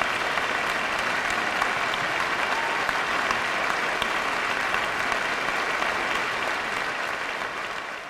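Audience applauding, a dense, even clapping that fades out near the end.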